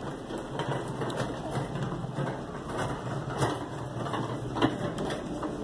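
Store cart rolling over a concrete floor, its wheels rattling steadily with a few sharper knocks.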